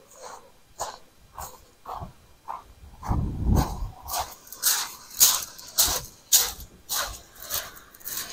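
Footsteps crunching on a shingle beach of small pebbles, about two steps a second, louder in the second half. A brief low rumble comes a little after three seconds in.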